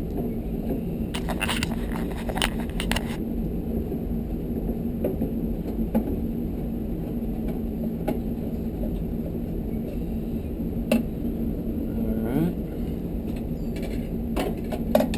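Long screwdriver working at screws deep inside a tankless water heater's sheet-metal housing: a quick run of metallic clicks and taps about a second in, then scattered single clicks, over a steady low hum.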